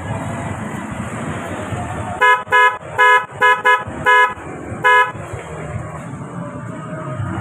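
Snail-type electric horns on a Yamaha NMAX scooter tested with about seven short honks in quick succession, from about two seconds in to about five seconds in, over a steady low background noise.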